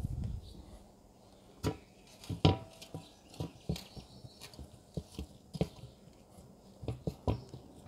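Hands patting and pressing wet mud mortar around the rim of an upturned aluminium pan, sealing the lid of a drum tandoor: a string of irregular soft knocks and pats. The loudest, about two and a half seconds in, rings briefly like struck metal.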